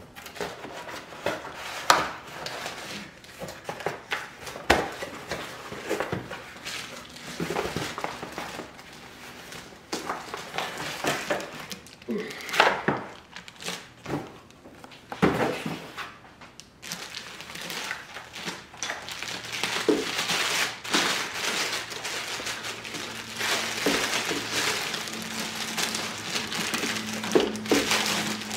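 Cardboard box and packing handled, with scattered knocks and rustles, then a plastic bag crinkling more steadily over the last several seconds as it is pulled off a boxed juicer base.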